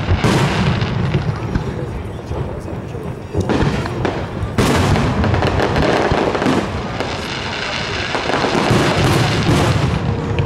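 Aerial fireworks shells bursting one after another in a dense barrage, with no quiet gap between the booms; fresh sharp bursts come right at the start, about three and a half seconds in, and again just after the middle.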